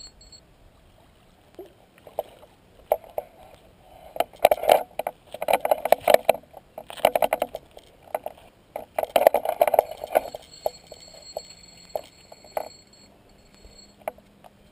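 Spinning reel clicking in irregular runs while a large northern pike is played on light 6-pound line. The clicking is densest and loudest from about four to ten seconds in.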